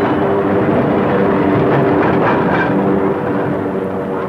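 A train running: a steady mechanical noise with several sustained low tones, easing off slightly near the end.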